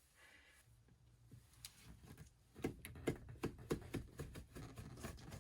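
Faint, irregular light taps and clicks, about two to three a second, over a low steady hum, as of small objects being handled.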